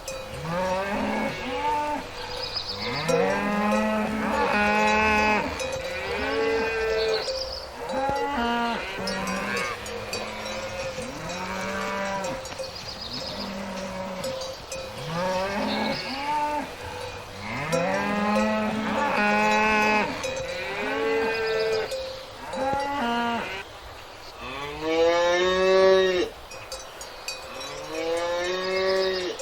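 Cattle mooing over and over: long calls that rise and fall in pitch, several cows at once with their calls overlapping.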